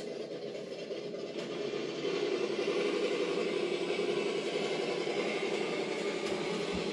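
Traxxas TRX-4 RC crawler's electric motor and geared drivetrain whining steadily as it climbs a steep 53-degree slope board, getting louder about two seconds in. A low thump comes near the end.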